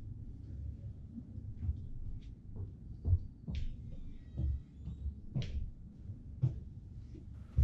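Footsteps climbing stairs: dull, uneven thuds about once a second over a steady low rumble.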